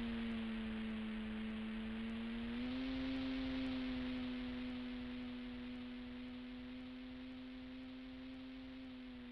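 RC model plane's motor and propeller drone steadily. The pitch steps down, comes back up about two and a half seconds in, and dips again at the end. The sound slowly fades over the second half.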